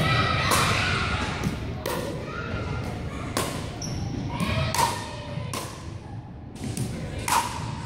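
Pickleball rally: paddles striking the hollow plastic ball, a sharp knock every second or so, echoing in a large gym.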